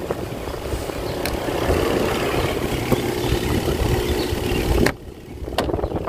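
Spin basket of a twin-tub portable washing machine running, a steady motor whir as it spins water out of the laundry. It cuts off sharply about five seconds in, followed by a click.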